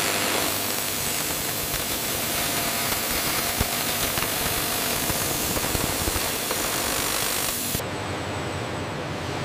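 Handheld angle grinder grinding a metal panel: a steady, dense grinding hiss. About eight seconds in the sound drops a little and changes.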